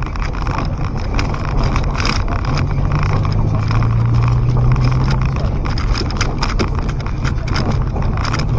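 Car driving over a rough dirt road, heard from inside the cabin: a steady low engine hum that grows louder around the middle, with frequent irregular knocks and rattles from the suspension and the bumpy, stony track.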